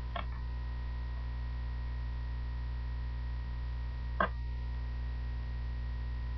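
Steady electrical mains hum on the microphone line, with a faint click at the very start and a sharper, louder click about four seconds in.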